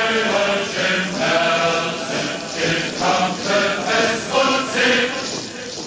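A large crowd of voices chanting together in unison, in loud rhythmic phrases.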